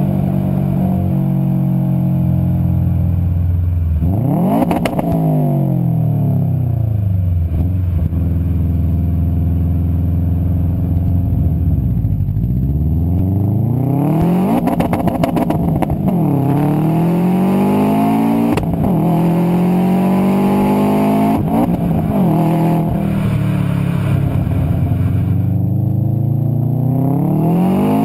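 2007 Subaru Impreza WRX STi's turbocharged flat-four engine revving. The pitch jumps up about four seconds in and falls slowly for several seconds, then climbs again in a series of rising pulls, each dropping back suddenly.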